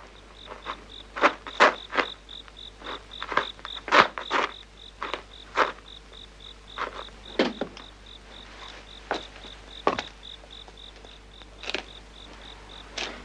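A cricket chirping steadily, about three chirps a second, over irregular knocks and clatters, the loudest about four seconds in.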